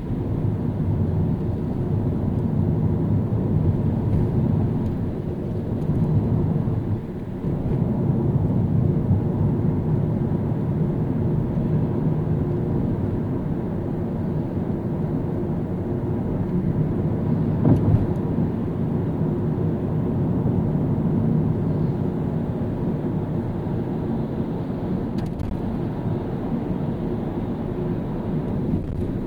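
Car driving through city traffic: a steady low rumble of engine and tyre road noise, with one brief sharp knock about two-thirds of the way through.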